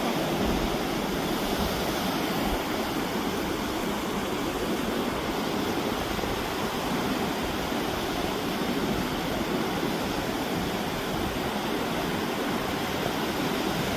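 Steady rush of sea surf and wind, with no distinct events.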